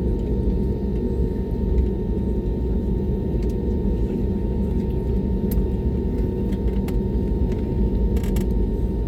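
Airbus A320neo jet engines (CFM LEAP-1A) running with a steady low rumble and a steady hum. A few faint clicks sound near the end.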